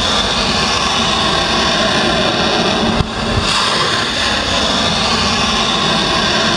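Missiles launching from a warship's deck: the loud, steady rushing noise of the rocket motor's exhaust. The noise dips briefly about three seconds in, then picks up again.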